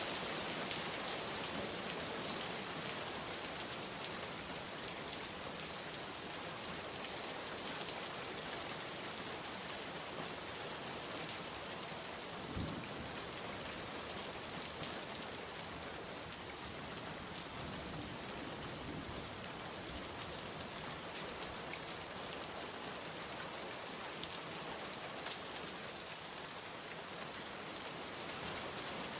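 Steady rain falling, an even hiss with scattered drops ticking on a surface and a brief low thump about halfway through.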